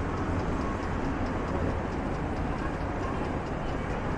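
City street traffic: a steady low rumble of car engines and tyres.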